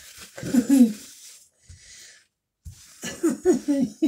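A man's wordless vocal sounds, about half a second in and again near the end, with a soft rustle of paper towel between them as he wipes the counter.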